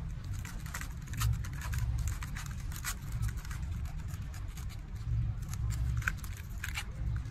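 Small knife cutting and scraping into the flesh of a pineapple as it is hollowed out: irregular crunchy, wet scraping strokes, a few louder ones about three and six seconds in, over a steady low rumble.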